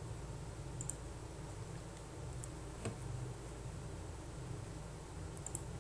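Quiet room tone with a low steady hum and a few faint clicks.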